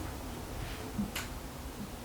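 Steady faint hiss of room noise, with a soft low knock about a second in and a short sharp click just after it.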